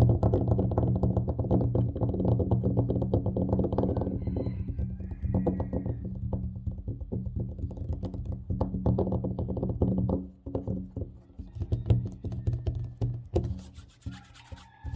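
Fast, aggressive fingertip and fingernail tapping and scratching on a tabletop: a dense, rapid patter of taps for about ten seconds, then scattered single taps that stop about a second before the end.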